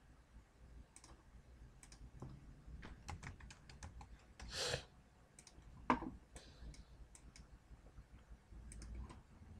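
Faint computer keyboard typing and mouse clicks, an irregular scatter of light clicks, with a brief louder rush of noise about four and a half seconds in and a sharper click about a second later.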